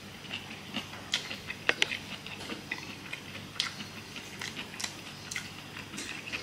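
Irregular light clicks and scrapes of a metal fork against a dish of takeaway food as chicken shashlik is picked up to eat, a sharper pair of clicks a little under two seconds in.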